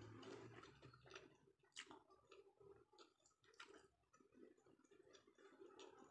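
Faint close-up chewing of a mouthful of sushi with the lips closed, with soft, irregular wet mouth clicks about once a second.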